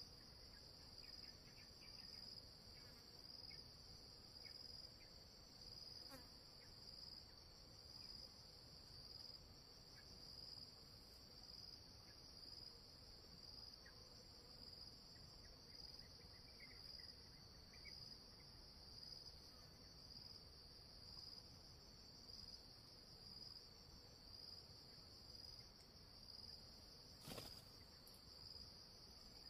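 Faint, steady chorus of insects, one high-pitched whine that pulses gently, with one sharp click near the end.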